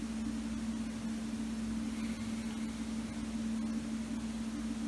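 Steady low electrical hum under a constant hiss: room tone, with no distinct events.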